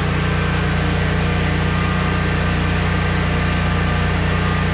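Generac 15,000-watt portable generator engine running steadily under load, powering a central air conditioner, with a loud, even hum.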